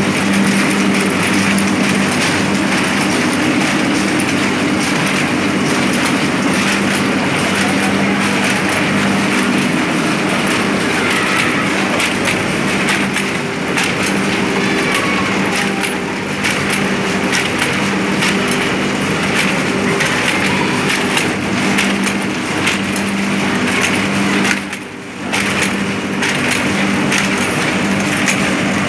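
Kalsi KMC-7000 chain-feeder thread book sewing machine running: a dense, rapid mechanical clatter of the sewing head over a steady motor hum. The sound drops briefly near the end.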